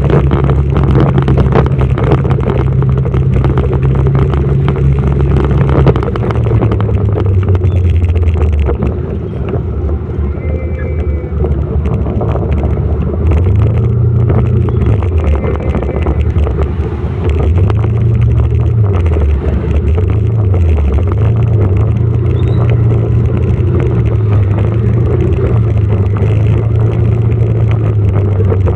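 Motorcycle engine running while riding, its pitch dropping about six seconds in and then rising and falling repeatedly with the throttle, over a steady rushing noise.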